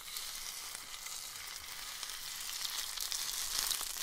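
Beaten egg poured into a hot frying pan and frying: a steady sizzle, with a few sharper crackles near the end.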